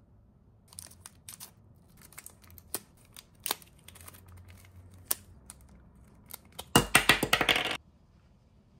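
Thin clear plastic bag crinkling and rustling as it is pulled off a small plastic Nendoroid figure, with scattered sharp clicks, then a loud burst of dense crinkling for about a second near the end.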